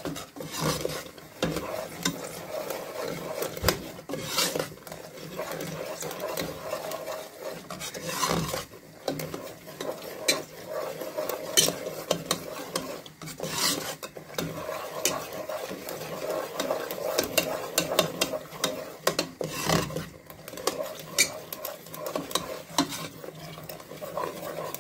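Steel ladle stirring and scraping gram flour (besan) as it roasts in oil in a metal pot, with irregular clinks of the ladle on the pot over a light sizzle. The besan is being fried until it turns brown, the first stage of making kadhi.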